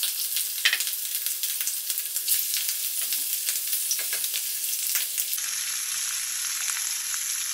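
Large spice-rubbed shrimp sizzling in hot oil in a frying pan, with scattered crackles and clicks as tongs move them. After about five seconds the clicks stop and only a steadier sizzle remains.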